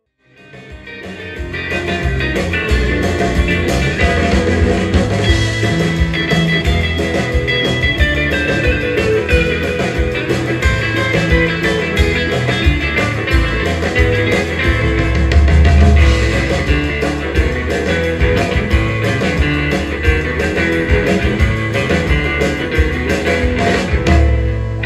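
Live rautalanka band playing an instrumental: electric lead guitar over rhythm guitar, bass guitar and drums with a steady beat. The music fades in over the first two seconds.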